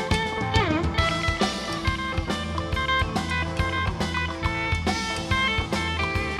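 Live rock band playing an instrumental passage: electric guitar notes over bass and drum kit with a steady beat. One note glides down in pitch about half a second in.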